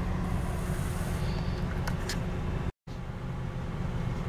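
Steady cabin noise of a 2014 Ford Escape with its 2.0L EcoBoost engine idling and the air-conditioning fan blowing: an even rushing hiss over a low hum. The sound drops out completely for an instant a little under three seconds in.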